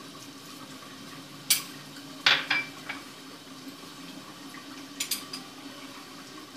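Metal spoon clinking against a glass bowl and the wok while vinegar is spooned into stir-fried vegetables. A handful of sharp clinks, the loudest about two seconds in ringing briefly, over a steady low hum.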